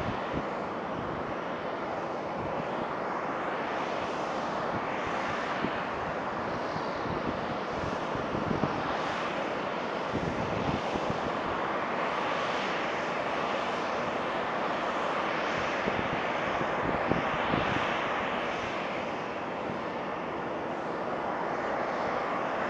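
Douglas DC-9-15's rear-mounted Pratt & Whitney JT8D turbofan engines running as the jet taxis on the runway: a steady jet whine and rush that swells and fades slowly.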